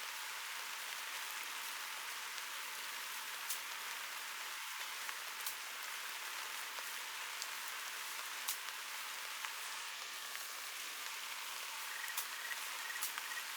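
Steady rain hissing, with scattered louder drops ticking. About twelve seconds in, a frog starts calling in a quick run of short, evenly spaced croaks.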